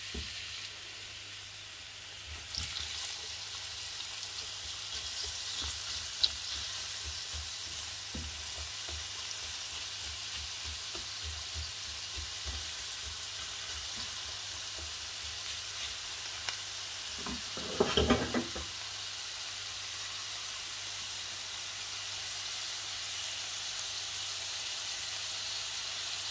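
Chopped onions sizzling in hot oil in a frying pan, a steady hiss, with the small clicks and scrapes of a spatula stirring them. A short, louder sound breaks in about eighteen seconds in.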